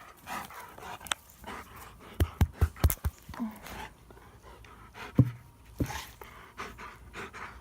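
Dog panting, broken by several sharp knocks, including a quick run of about four near the middle.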